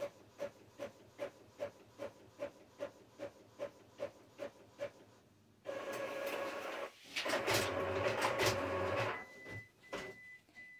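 Printer printing a transfer sheet: a regular ticking, about two and a half ticks a second, for the first five seconds. Then a louder steady whirring with a hum, briefly interrupted, stops about nine seconds in.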